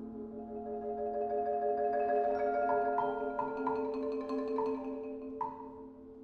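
Marimba and mallet percussion playing soft, long held chords, with short repeated higher notes struck over them from about two seconds in. The sound fades near the end.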